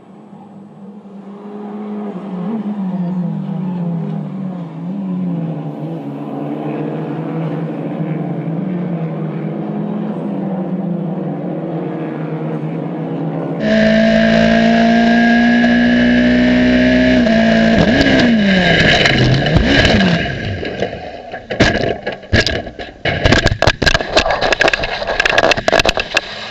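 Race car engines revving up and down through gear changes. Then a louder car engine holds a steady note and falls in pitch, followed by a rapid series of sharp impacts and scraping typical of a racing crash.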